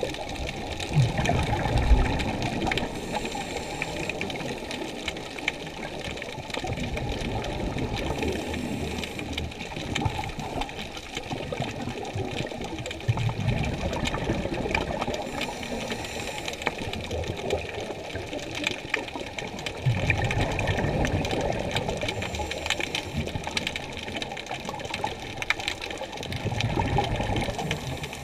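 Muffled rushing water noise from a camera moving underwater, swelling louder about every six seconds.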